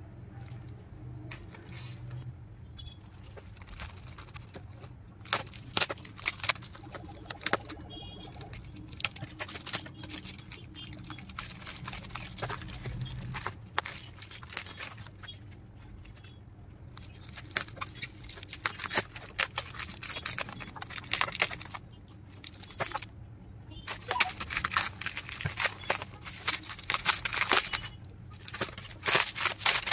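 Plastic courier bag and clear plastic wrapping crinkling and crackling in the hands as a parcel is opened and unwrapped, in irregular rustles that get denser and louder over the last several seconds.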